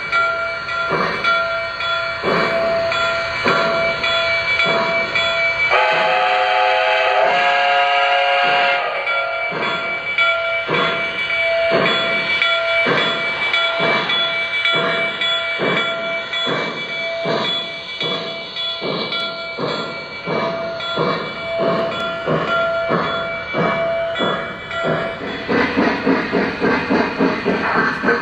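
Lionel Vision Line 700E Hudson O-gauge model's RailSounds steam sound playing chuffs that start about one every three-quarters of a second and quicken as the locomotive gathers speed, under its automatic sequence control. About six seconds in, a multi-tone chime whistle blows for about three seconds.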